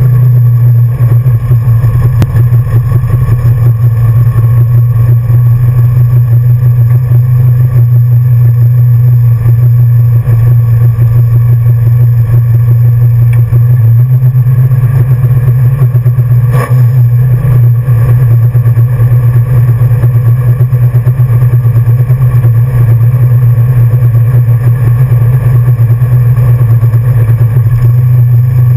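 1966 Ford Mustang's 347 stroker small-block V8 idling loud and steady, heard from inside the cabin, with a single sharp knock a little past halfway.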